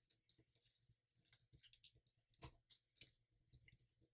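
Faint rustling and creasing of a sheet of paper being folded by hand, with scattered soft clicks and scrapes, the clearest about two and a half seconds in.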